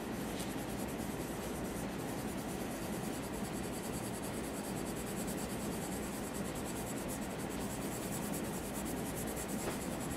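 Pencil scratching on paper in rapid, steady short strokes, shading in a large area.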